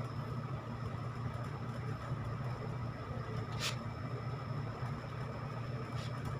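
Steady low hum of background noise, with two faint clicks about three and a half and six seconds in as plastic ring light parts are handled and fitted together.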